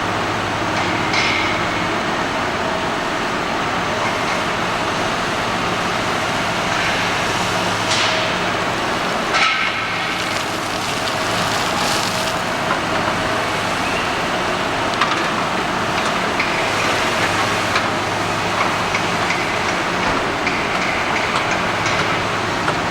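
Heavy construction machinery running steadily, an engine hum under a noisy din, with scattered sharp knocks and clanks, a few louder ones about a third and halfway through.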